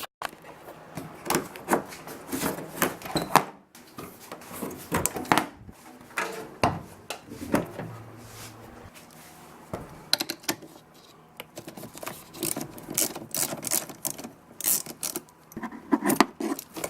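A 10 mm wrench and the battery terminal clamp clicking and clinking in irregular bursts of sharp metal knocks as the battery is disconnected.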